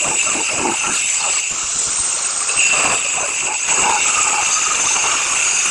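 Angle grinder running and cutting tile: a steady high-pitched whine that shifts slightly in pitch about two seconds in, over the rough noise of the cut.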